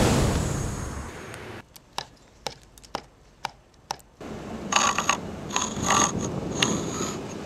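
A loud rushing sound that dies away over the first second and a half, then a few separate sharp taps, then from about four seconds in a hafted stone tool scratching and scoring a stone surface in repeated grating, squeaky strokes.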